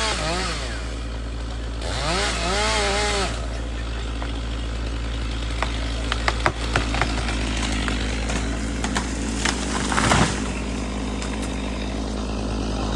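Chainsaw revving up and down in short pulses near the start, then running steadily at a lower pitch. Over it come a string of sharp cracks and snaps, with a louder burst about ten seconds in.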